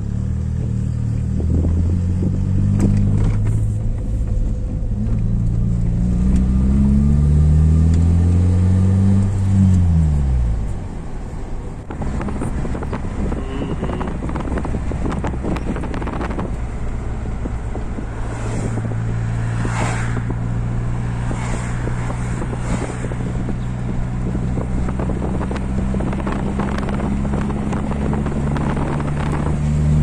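Car engine revving higher and higher for about ten seconds as the wheels spin, the car stuck and wheel-spinning; then the revs fall away suddenly. Later the engine runs at a steady note, with a few knocks and rattles.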